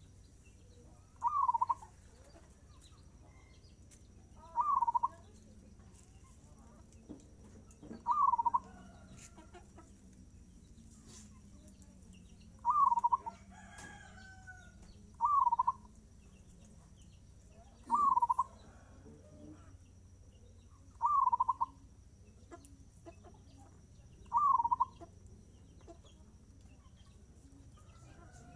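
Zebra dove (perkutut) cooing its short song phrase again and again, about every three to four seconds, eight times.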